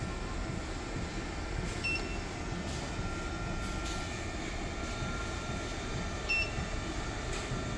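Cooling fans of a DC electronic load and a 48 V telecom rectifier whirring steadily while the rectifier delivers about 54 V at 10 A into the load. Two short keypad beeps from the electronic load, about 2 s in and again near the end.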